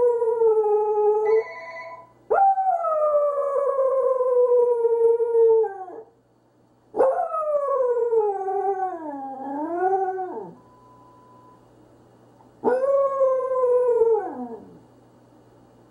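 Pembroke Welsh Corgi howling in long, drawn-out calls, each starting high and sliding down in pitch. There are four howls with short pauses between them, and the third wavers up and down near its end.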